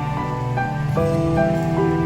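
Soft, slow background music, held notes changing every half second or so over a steady low tone, with a light rain-like patter underneath.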